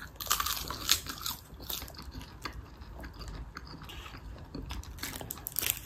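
A small child chewing crisp seasoned seaweed snack, crunching in quick runs of fine clicks, thickest in the first second and a half and again near the end.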